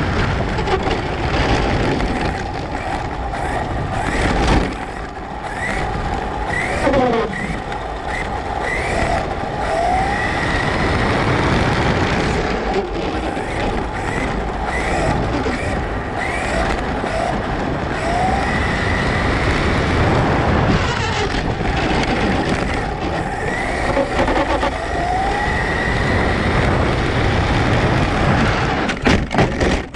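Electric RC truck heard from a camera on its own body while driving on asphalt: the motor and gears whine, sweeping up in pitch again and again as the throttle is worked, over a steady rush of tyre and wind noise.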